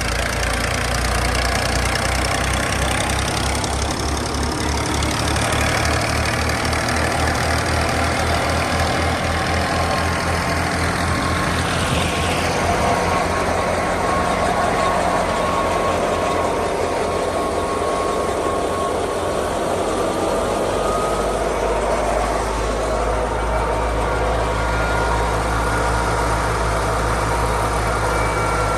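Fiat 480 tractor's diesel engine running steadily while driving a wheat thresher, a low even engine beat under the thresher's dense rushing whir. Faint steady whines come in during the second half.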